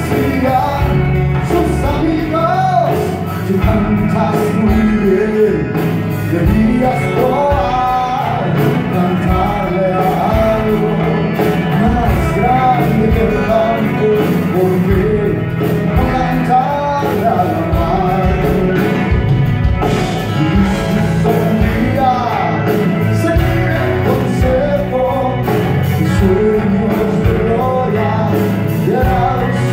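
Live band music: acoustic guitars with drums and keyboards, a lead melody winding over a steady accompaniment.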